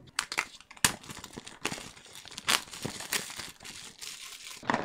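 Wrapping on a small speed-cube retail box being torn and crinkled open, with irregular sharp crackles.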